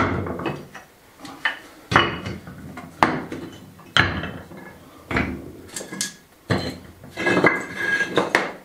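Pieces of old clay tile being picked up and stacked on a hard floor, clinking and knocking against each other in sharp strikes about once a second, with a longer clatter near the end.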